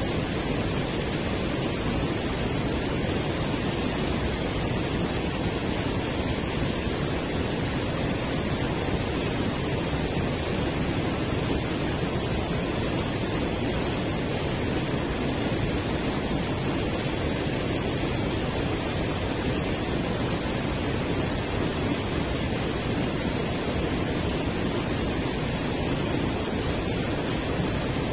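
Steady rush of river water spilling over a low concrete weir.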